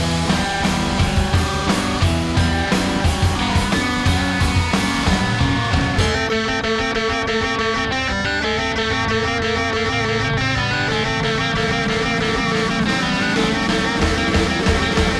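Rock music with guitar and a steady beat; about six seconds in, the drums drop out and a repeated guitar note carries on over quieter accompaniment.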